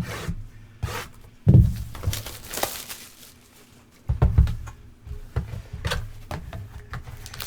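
Handling and opening a cardboard trading-card box: scattered rustles and clicks of packaging, with two soft thumps, about a second and a half in and about four seconds in.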